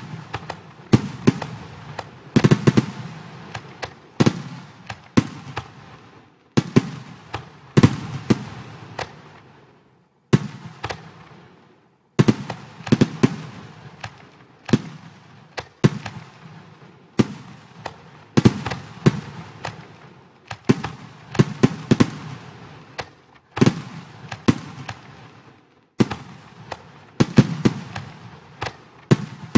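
Fireworks sound effects from a computer fireworks simulation: shell bursts one after another, each a sharp bang trailing off into crackling, with a few short silent gaps between volleys.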